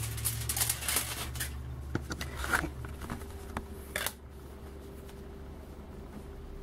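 Rustling and light scraping as a 3D-printed plastic plate is handled and lifted off aluminium foil, then a sharp tap about four seconds in as it is set down on a stone countertop. A low steady hum runs underneath.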